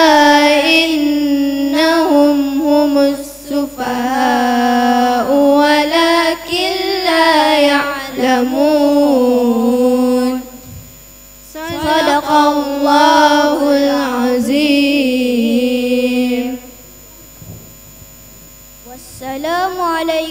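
Children's voices chanting Qur'anic verses in melodic Arabic tartil recitation, with long held notes that bend and waver. The chant breaks off twice for short pauses between verses.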